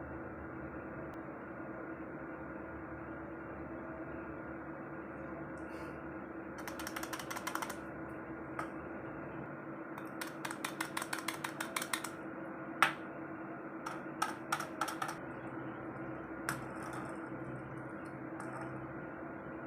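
Steady machine hum with a constant tone, broken by several runs of rapid mechanical clicking, like a ratchet, and a few single sharp clicks, the loudest a little past the middle.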